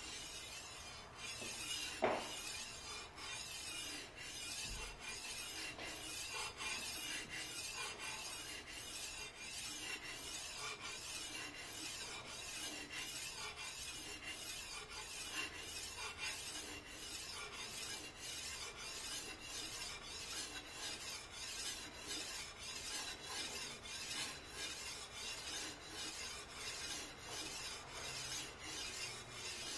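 Steel edge of a Master Kuo G-5 3XL fish cleaver being stroked across a wet 400-grit Chosera water stone in a rocking U-shaped motion: a steady, rhythmic scraping of evenly repeated strokes. A brief clink about two seconds in.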